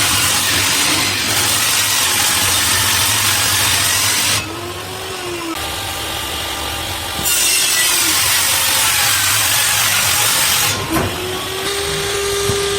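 Electric power tool cutting wood in two long passes of about four and three seconds. Between the passes and after the second one, the motor runs on at a lower level with a steady hum.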